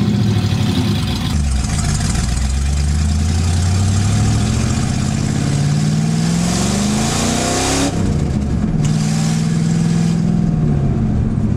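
A 1989 Mustang LX's naturally aspirated 302 V8 with straight headers, heard from inside the car as it accelerates. The engine note climbs steadily for about six seconds, drops sharply about eight seconds in, then holds steady at a lower pitch.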